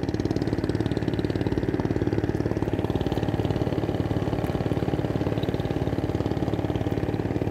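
Small fishing boat's engine idling steadily with a fast, even firing beat.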